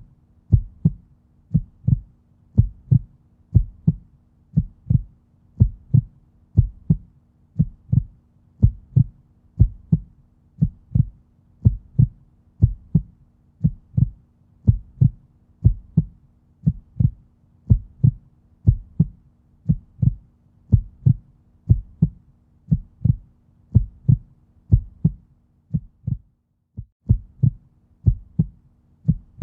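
Human heartbeat: a steady lub-dub double thump about once a second, at a slow resting pace, over a faint low hum. It breaks off briefly once, a few seconds before the end.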